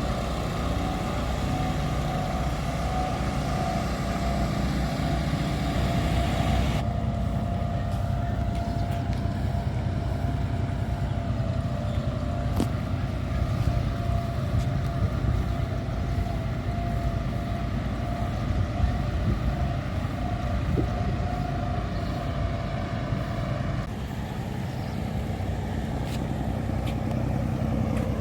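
An engine running steadily, a low rumble with a thin steady hum above it; the sound changes abruptly about seven seconds in and again near the end.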